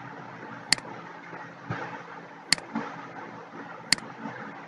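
Three sharp computer-mouse clicks over a steady background hiss.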